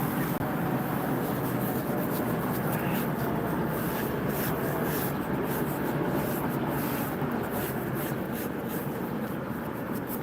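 Fresh masonry being scrubbed clean by hand: repeated scratchy rubbing strokes over a steady low rumble.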